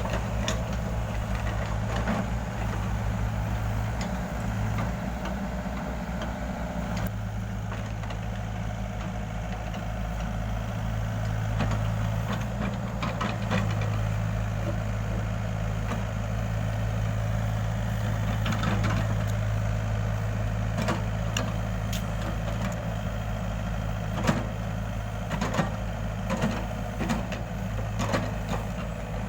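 Excavator's diesel engine running steadily, with scattered sharp knocks in the second half.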